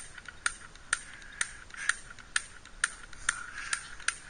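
Spark igniter of a homemade spud gun clicking, about ten sharp, evenly spaced clicks at roughly two a second.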